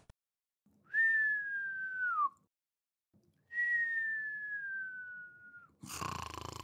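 Cartoon sleeping sound effect: two long whistled out-breaths, each sliding slowly down in pitch, the first ending in a quick drop, like a whistling snore. A short rough noise follows near the end.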